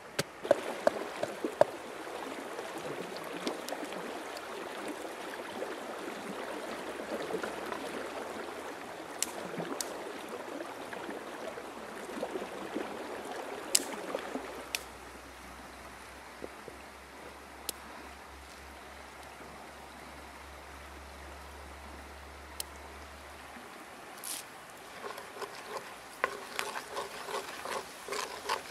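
Water trickling and splashing, then a quieter spell. Near the end a crackling sizzle starts as chilli-garlic paste fries in hot oil in a wok.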